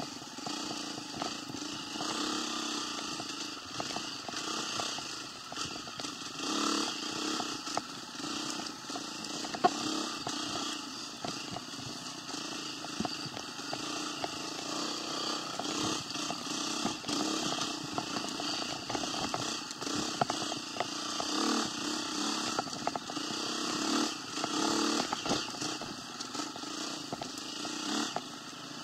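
A vehicle engine running, swelling and easing off again and again, with scattered clicks and rattles over it.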